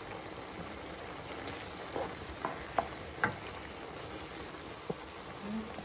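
Minced-meat and vegetable tomato sauce simmering in a frying pan: a steady sizzle with a few short pops in the middle seconds.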